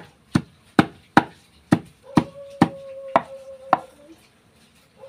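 A hand-held stone pounding beluntas leaves against a wooden plank to crush them: about nine sharp knocks, roughly two a second, that stop near the four-second mark.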